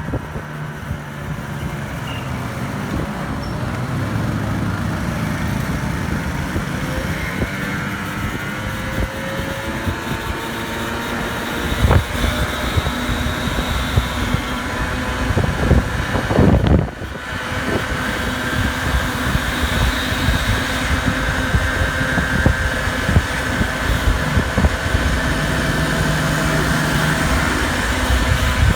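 Small 50cc scooter engine running under way, its pitch shifting up and down, with wind buffeting the microphone. Sharp knocks about twelve and sixteen seconds in.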